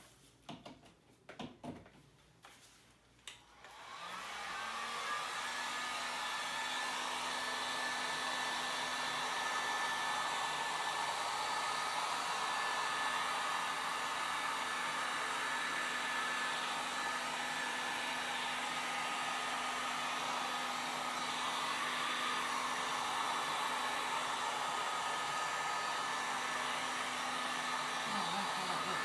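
A few knocks, then an electric heat gun starts about four seconds in and runs steadily, its blower hissing with a steady hum, as it is held over wet acrylic pour paint. It cuts off near the end.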